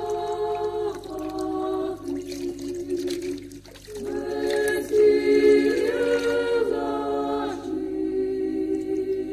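Voices singing a cappella in slow, long-held notes, like a small choir, with a brief dip about three and a half seconds in before the singing swells up again.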